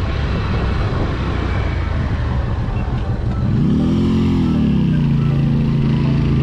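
Motorcycle engine running with a rough low rumble, then revved up once about three and a half seconds in and settling back to a steady idle.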